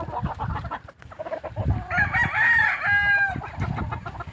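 A rooster crows once, a long call lasting over a second that starts about halfway through. Chickens cluck around it.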